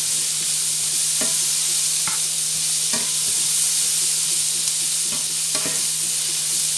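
Thinly sliced onions sizzling in melted butter in a frying pan, a steady hiss, with several short scrapes and knocks as a plastic slotted spatula stirs them against the pan.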